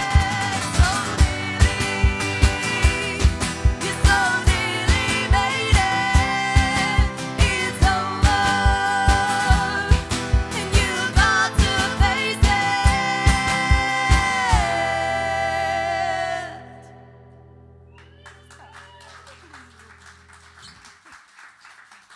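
Live band playing the song's closing section: wordless held singing over guitar and a steady beat. The beat stops about fifteen seconds in, a final chord and long sung note ring out and end shortly after, leaving the room quiet with faint voices.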